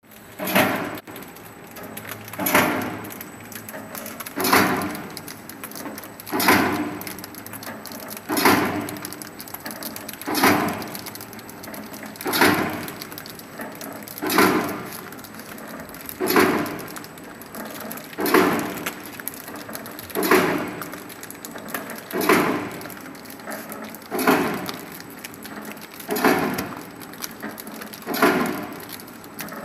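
Fondant extruder-cutter packing machine running at a steady cycle. About every two seconds a sound swells and fades over a constant mechanical background.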